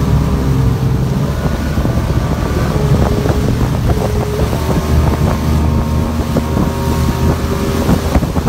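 Motor of a loaded passenger riverboat running steadily under way at speed, with wind buffeting the microphone.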